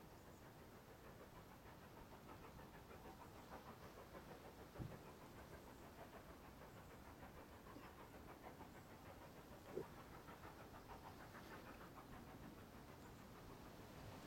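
Distant steam locomotive, LNER K1 No. 62005, working hard up a climb: faint, rapid exhaust beats, with two brief knocks about five seconds apart.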